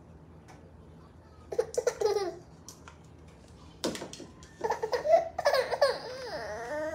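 A baby's voice: short bursts of excited, laugh-like vocalising, then a drawn-out wail beginning near the end as she starts to cry. A single sharp knock about four seconds in.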